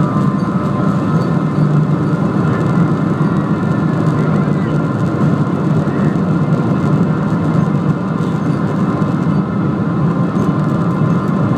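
Boeing 777 jet engines at takeoff thrust, heard inside the cabin from a seat beside the engine. A loud, steady rush with a low hum and a steady high whine continues through the takeoff roll and liftoff.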